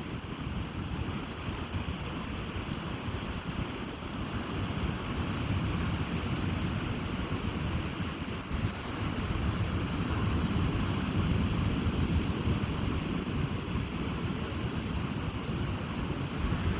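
Ocean surf washing on a beach, a steady hiss, with wind buffeting the microphone as a low rumble.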